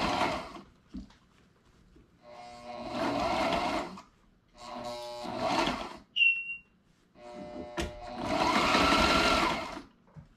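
Electric sewing machine stitching heavy cushion fabric in four runs of one to three seconds each, stopping and starting between them. A short high chirp sounds about six seconds in.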